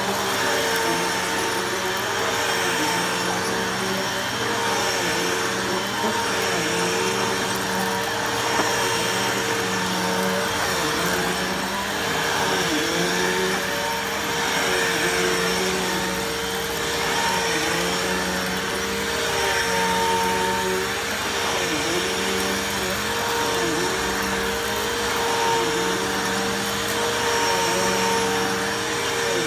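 Bissell PowerForce Bagless 6579-3 upright vacuum cleaner running continuously with a steady motor whine. The lower part of the sound swells and dips in an even rhythm about every one and a half seconds while the vacuum is in use.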